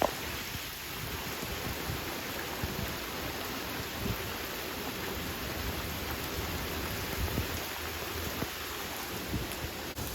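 Steady rain falling, an even hiss with some low rumbling underneath.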